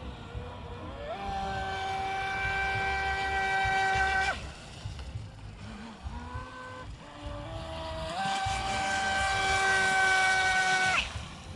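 Electric RC boat's brushless motor, fed from a 3S LiPo through a 120 A speed controller, whining at a steady high pitch at full throttle for about three seconds, then cutting off. It steps back up in pitch for a second full-throttle run that stops abruptly near the end.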